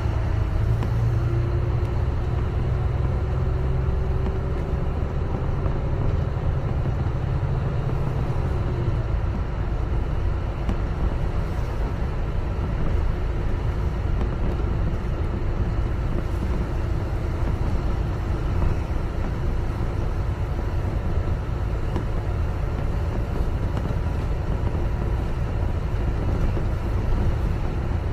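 Double-decker bus running, heard from on board: a continuous low rumble of engine and road. A steady low engine hum fades about nine seconds in, leaving the rumble.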